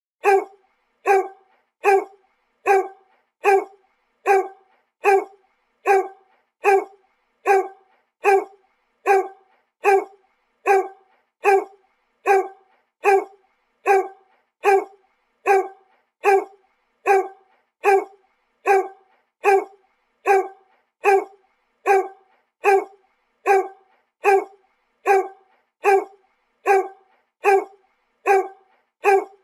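A dog barking about once a second, the same short bark repeated evenly over and over like a looped sound effect.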